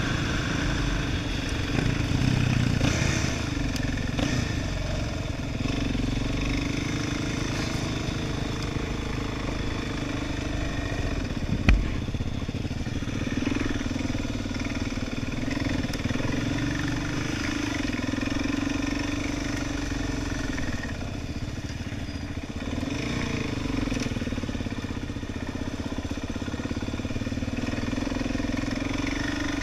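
Quad bike engine running steadily as it is ridden over a dirt track, its note rising and falling slightly with the throttle. A single sharp knock stands out about halfway through.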